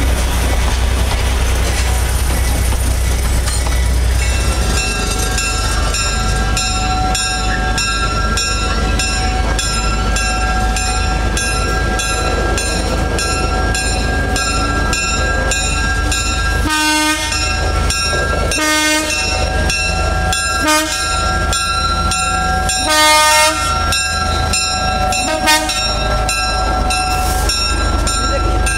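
Small switcher locomotive (USA 7751) running past pulling a caboose and an open passenger car, its engine droning steadily over rolling wheels. In the second half it sounds about five short horn blasts roughly two seconds apart, one a little longer.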